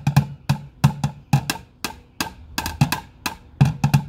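Two wooden drumsticks beating a plastic chlorine-tablet bucket like a drum: a quick, uneven run of hits, about four or five a second with some fast doubles, each with a low, drum-like tone.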